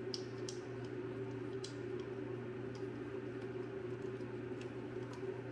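A few light, scattered clicks from handling a Delta cartridge puller tool while its screw is backed out by hand, over a steady low hum.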